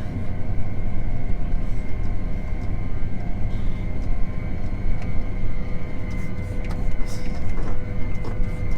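Steady engine drone and road rumble heard from inside a moving farm vehicle's cab, with a few constant whining tones running over it.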